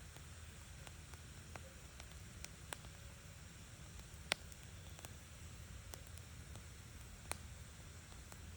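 Wood fire crackling faintly, with scattered small pops over a low steady rumble; the sharpest pop comes about four seconds in and another about seven seconds in.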